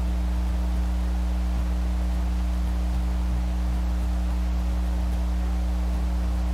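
A steady low hum made of a few fixed tones, unchanging throughout.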